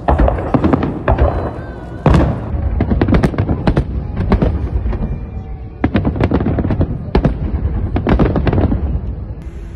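Fireworks salute going off: aerial shells bursting in rapid, overlapping bangs and crackles, in two dense volleys with a short lull between them.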